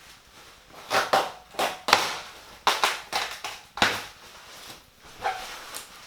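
A PC case's packaging being handled and pulled open: a series of irregular crunching and scraping bursts, the loudest about two seconds in and again near four seconds.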